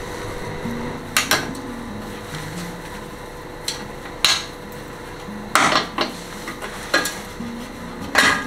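A screwdriver and screws clinking against an aluminium heat-shield panel as it is unscrewed and handled: a series of sharp metallic clicks at irregular intervals, the loudest near the end. Quiet background music with slow stepping notes underneath.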